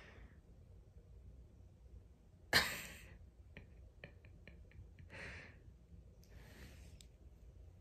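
Three breathy puffs close to the microphone: a sharp, loud huff about two and a half seconds in, a softer one about five seconds in and a faint one shortly after, with a few faint clicks between them.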